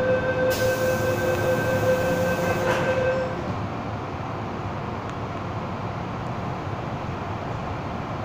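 Hong Kong MTR M-Train heard from inside the passenger car: a steady rumble of the running train. Over the first three seconds a steady whine and a hiss sound over the rumble, then fall away.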